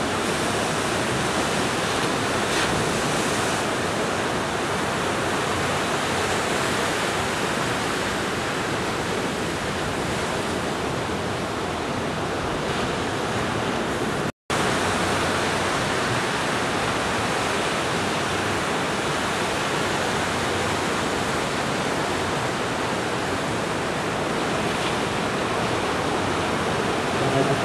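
Steady wash of breaking ocean surf. The sound cuts out for a split second about halfway through.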